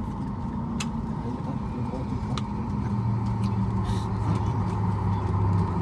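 Airliner cabin noise aboard a Boeing 737 MAX 8 after landing: a steady low hum whose deepest drone strengthens about halfway through, with three sharp clicks in the first half.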